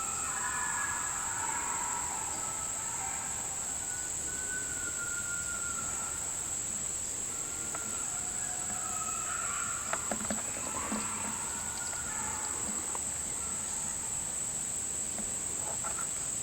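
Steady high-pitched drone of insects, with faint wavering howls of distant coyotes answering a howl call, first near the start and again more busily in the middle.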